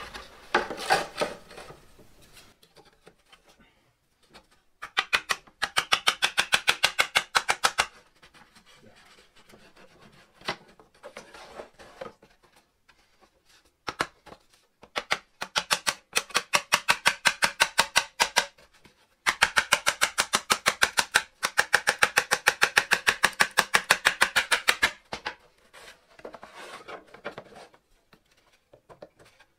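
Rapid, light mallet blows driving a wooden wedge into the seam between two epoxy-bonded plywood panels to split them apart, at about six or seven taps a second. The tapping comes in three runs, the last and longest lasting about six seconds, with a few single knocks in between.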